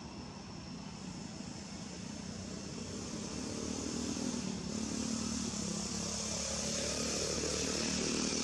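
A motor vehicle engine running steadily and growing louder, as if approaching, reaching its loudest near the end.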